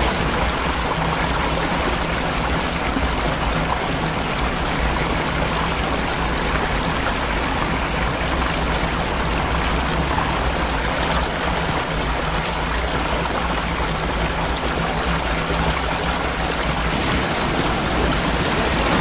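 Waterfall pouring into a shallow rock pool: a steady, loud rush of falling water.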